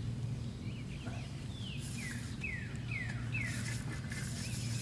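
A bird sings a quick series of about five short falling whistled notes, roughly two a second, over a steady low hum.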